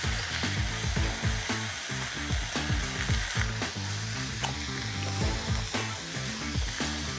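Slices of beef rib meat sizzling and frying in a thick-bottomed nonstick frying pan over a gas flame, a steady crackling hiss that eases slightly about halfway through. A backing track with a steady beat plays underneath.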